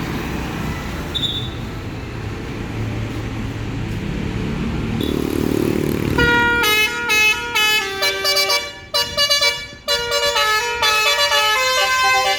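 Traffic and a bus engine running, then about six seconds in a bus's basuri musical horn starts up: several horn tones sounding together, stepping through a melody with short breaks, louder than the traffic.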